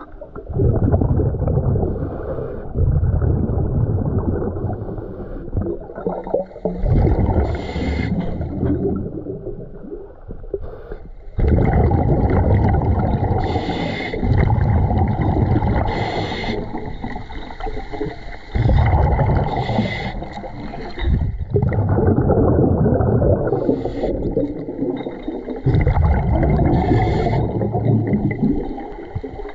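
Underwater, muffled breathing of a diver or snorkeler filming: slow, heavy breaths every few seconds with gurgling bubbles and water movement, heard through the camera's waterproof housing.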